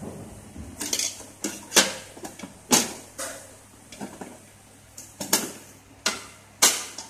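Metal parts of a follow spotlight's housing knocking and clicking as they are handled and fitted together: about a dozen irregular sharp knocks, the loudest about two and three seconds in and again near the end.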